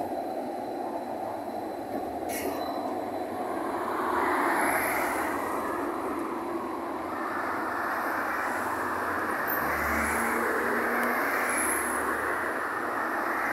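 An articulated low-floor tram running past on street track, its wheels and running gear rumbling, louder from about four seconds in as it passes close. A few faint, short, high squeals come from the wheels.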